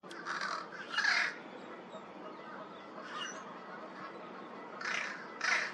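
American crow giving short, harsh, nasal caws, imitating a fish crow's call: a pair of calls at the start, a faint single call in the middle, and another pair near the end.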